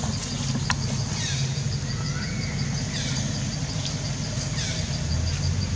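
A steady low motor hum with a high chirp repeating several times a second, and a few short falling squeaks scattered through it.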